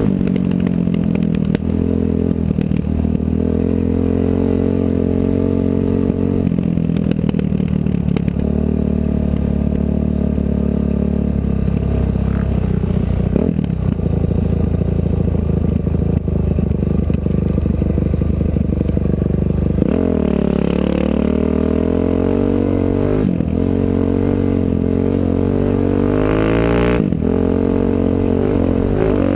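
Off-road race vehicle's engine running hard, heard from on board, its pitch holding fairly steady for most of the stretch. In the last third it rises and falls several times as the throttle is worked.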